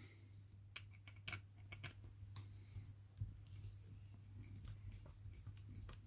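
Faint, irregular small clicks and scrapes of a screwdriver undoing coarse self-tapping screws from a small electric motor's housing.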